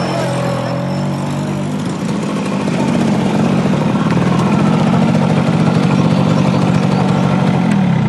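Small Suzuki motorcycle engine running as the bike is ridden. Its pitch shifts with the throttle in the first couple of seconds, settles into a steady drone, then drops as the bike slows just before the end.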